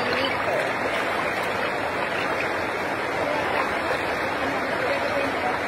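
Shallow, fast river rushing over rocks in a steady, unbroken rush of water.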